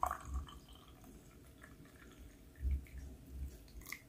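Brewed coffee trickling from a French press into a mug. The stream dies away just after the start, leaving faint drips, with a soft low bump near the middle.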